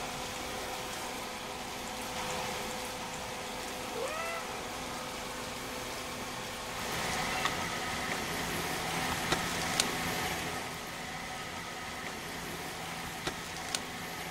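Orange tabby kitten giving one short mew about four seconds in, over a steady background hiss, with a few light clicks later on.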